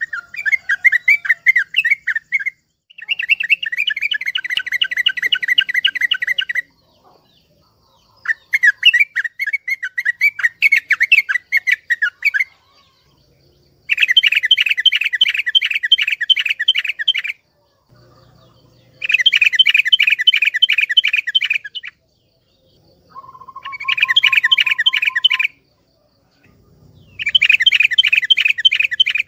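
Yellow-vented bulbul (trucukan) singing loudly in seven bursts of rapid repeated chirping notes, each a few seconds long, with short pauses between. A brief steady lower whistle comes just before the sixth burst.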